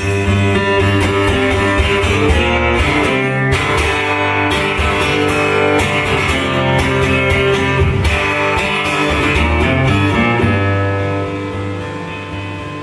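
Guitar strummed and picked in a loud, full instrumental passage between sung lines, easing off slightly near the end.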